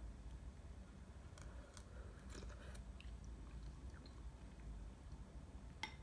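Quiet eating sounds: a metal spoon scooping soup from a ceramic bowl, with a run of faint clicks and one sharper clink near the end.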